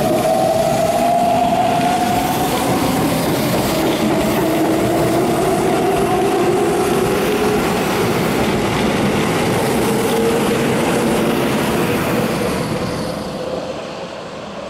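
Keihan 7200-series electric train accelerating away over the rails: the inverter-driven motors whine in slowly rising tones over wheel and rail noise. It fades as the train pulls away near the end.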